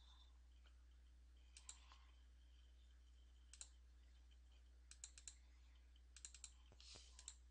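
Faint computer mouse clicks, some in quick double-clicks, over a low steady hum.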